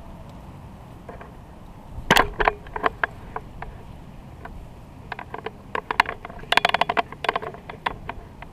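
Quick, irregular clicking and clacking of hard objects knocking together, in two busy clusters: one about two seconds in and a longer one past the middle.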